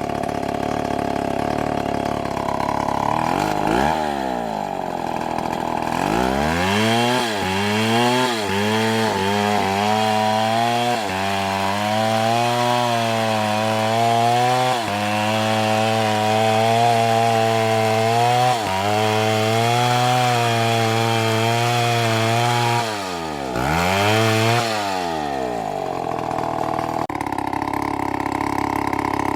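Two-stroke chainsaw running at high throttle while cutting wood, its engine pitch sagging and recovering over and over as the chain bites. A few times the engine speed falls away sharply and climbs back up, about four and six seconds in and again near the end.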